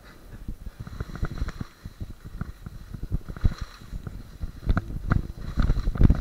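Skis running through soft snow downhill, with wind buffeting the camera microphone: a low rumble broken by irregular thumps and knocks.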